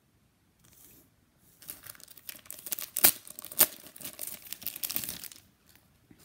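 Clear plastic wrap on a foil trading-card pack being torn open and crinkled by hand, a run of crackling with two sharp cracks about three seconds in.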